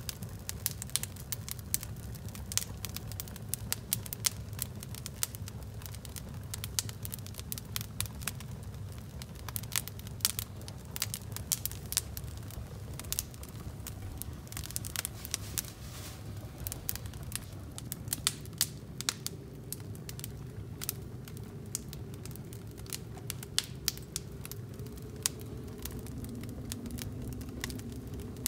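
Wood fire crackling and popping: irregular sharp snaps over a steady low rumble.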